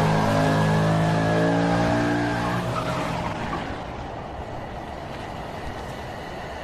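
A car engine running at high revs, its pitch sinking slightly as it fades away over the first few seconds, with a hiss of road or tyre noise.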